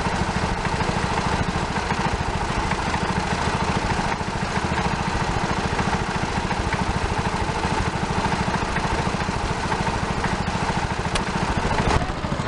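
1955 JAP Model O 34cc two-stroke engine running steadily at a fast, even beat while driving a small generator that lights two bulbs.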